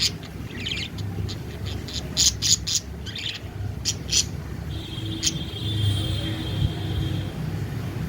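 Pet budgerigars chirping: short, sharp chirps, several in quick runs, with a steady held tone for about two and a half seconds past the middle. A low steady hum runs underneath.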